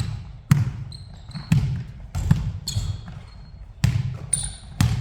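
Basketball dribbled on a hard court floor during a ball-handling drill: five separate bounces at an uneven pace, with a few short high squeaks between them.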